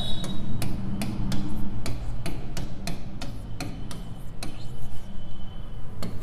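Chalk being written on a chalkboard: a quick run of sharp taps and short scrapes as letters are stroked out, about three or four a second, dying away after about four and a half seconds.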